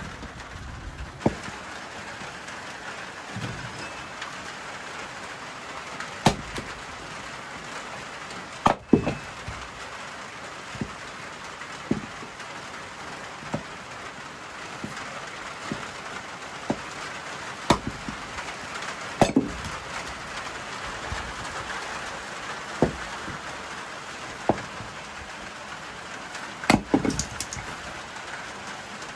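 Steady rain, with scattered sharp knocks and taps every second or two standing out above it.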